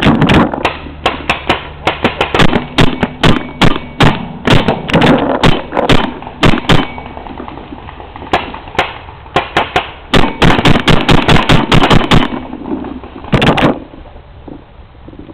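Paintball marker firing in fast strings of sharp shots, up to about five or six a second, then stopping about twelve seconds in, with one last quick burst a second later.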